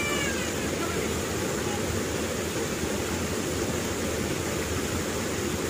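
Steady rush of running water, an even noise with no rhythm or change.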